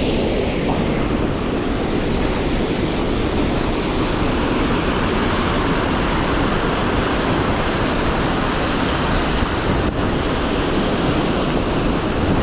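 Steady rushing of river water, with wind rumbling on the microphone.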